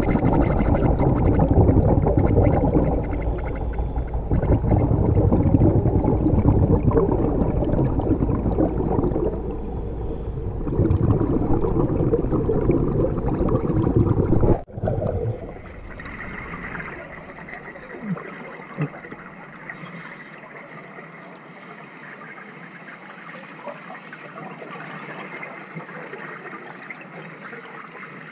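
Underwater rushing and bubbling water noise as a diver descends trailing a stream of exhaled bubbles. About halfway through it cuts off abruptly to a faint hiss with a couple of small pops.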